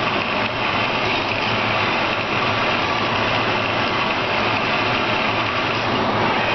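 Steady machine noise, a constant hum and hiss with no change in pitch or level, from the running 3D printer and lab equipment.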